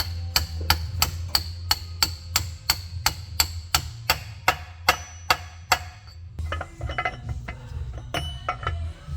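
Steady hammer tapping on metal, about three sharp ringing taps a second for roughly six seconds, then irregular light clinking of metal parts.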